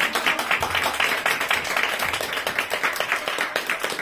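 Audience applauding: many hands clapping in a steady dense patter.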